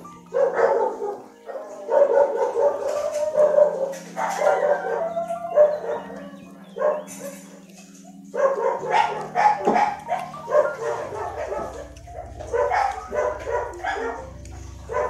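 A dog barking in quick repeated runs, with a pause in the middle, over background music's steady low notes.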